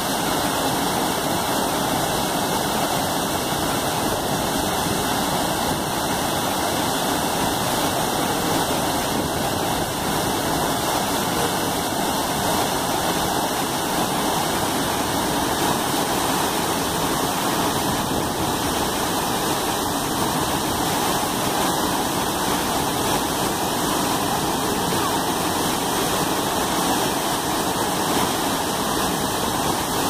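About 60-foot waterfall in heavy flow, plunging into a pool: a steady, loud roar of falling and splashing water.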